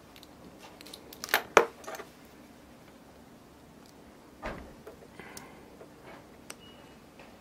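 Sharp clicks and taps of small diecast model-car parts and tools being handled during disassembly, the loudest a pair of clicks about one and a half seconds in and another knock about four and a half seconds in.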